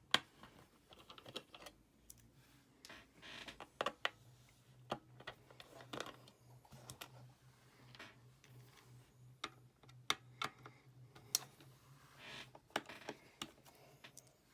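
Irregular small clicks and taps of a screwdriver and small metal and plastic parts being handled while taking apart a 2014 Mac mini, with a faint low hum underneath.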